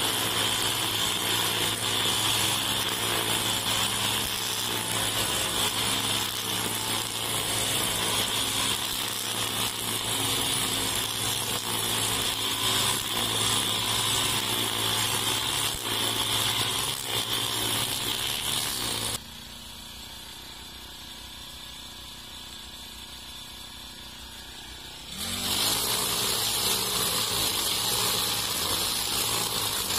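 Four-stroke brush cutter with a nylon-line trimmer head running at high revs while cutting grass, with a steady high whine. About two-thirds of the way in it drops abruptly to a much quieter low running for about six seconds, then revs back up with a rising pitch.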